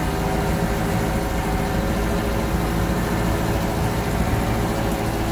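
Compact tractor's engine running steadily as the tractor drives slowly through the woods.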